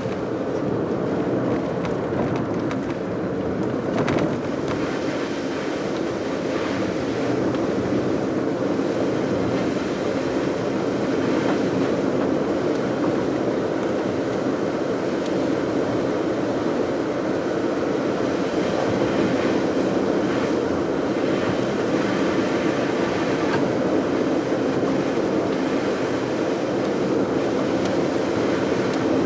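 Steady running noise of a car driving on a wet road: tyres on wet asphalt with the engine underneath.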